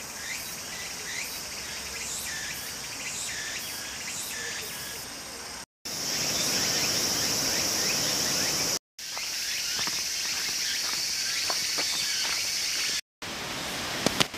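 Steady, high-pitched chorus of insects in summer woods, with repeated short chirps in the first few seconds. The sound drops out abruptly three times at edits, and the high chorus is loudest in the middle stretch.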